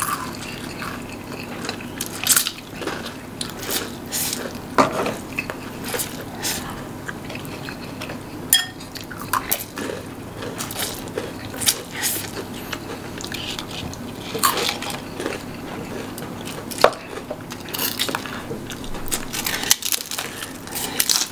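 Cutlery clinking and scraping against bowls and plates during a meal of instant noodles, in many short irregular clicks, with some biting and chewing.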